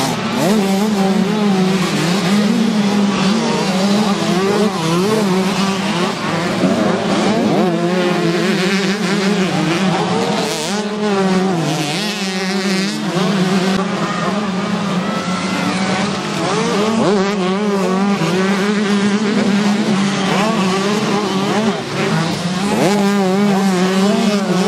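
Several 125-class motocross bikes racing past, their engines revving up and down through the gears and overlapping one another throughout.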